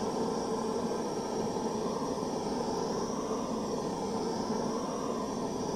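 Steady rushing hum of an electric fan or blower running continuously, while wax is melted.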